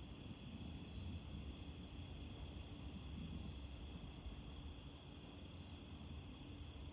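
Wind rumbling and gusting against a steady high insect trill, with crickets chirping at a slow, regular rate.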